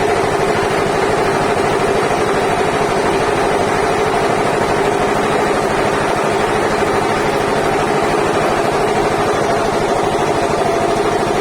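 Sawmill machinery running steadily, a constant mechanical hum with a few fixed tones and no change in pace.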